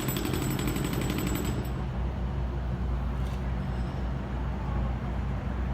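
Jackhammer breaking into concrete: rapid hammering for about a second and a half that then stops, over a steady low rumble.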